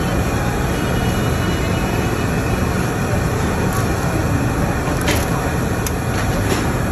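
Steady restaurant din with a low rumble throughout, and a few light metallic clicks from steel tongs handling the beef slices on the tabletop grill, starting about four seconds in.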